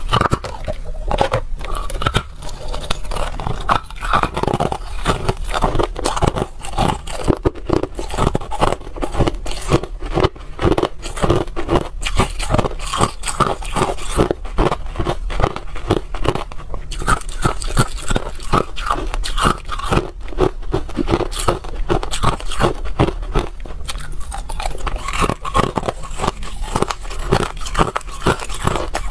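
A person biting and chewing chunks of hard ice: a dense, continuous run of sharp crunches and cracks as the ice breaks between the teeth.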